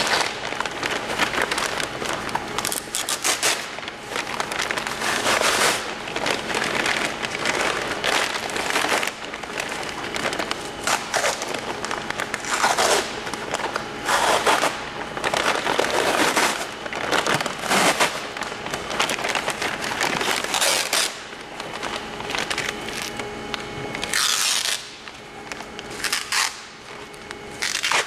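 Peel ply being torn off a cured carbon-fibre and epoxy laminate: a continuous dry crackling rip as the fabric comes away from the cured resin, with a few short squeals. It eases off near the end.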